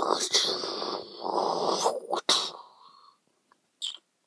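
A person making a crash-and-collapse sound effect with their mouth for a falling wall: breathy, hissing noise in two swells over about two and a half seconds, then a short puff near the end.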